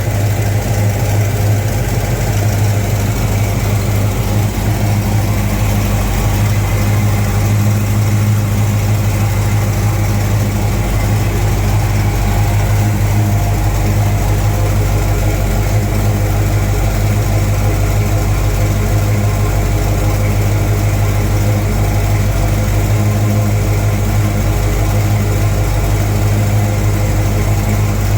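Freshly rebuilt Pontiac 400 V8 in a 1970 GTO running steadily at idle, warming up.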